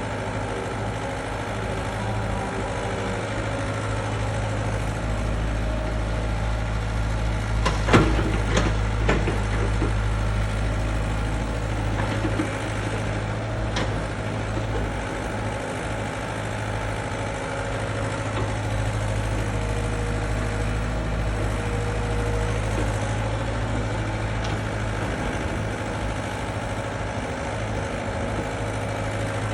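Excavator's diesel engine running steadily, with a few sharp knocks about eight seconds in as the machine works the soil.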